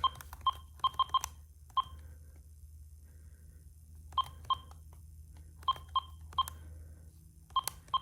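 Key-press beeps from an AT&T E580-2 cordless expansion handset as its buttons are pressed to register it to the base: about fourteen short beeps at one pitch, in uneven clusters, with a pause of a couple of seconds in the middle. A steady low electrical hum from computer speakers runs underneath.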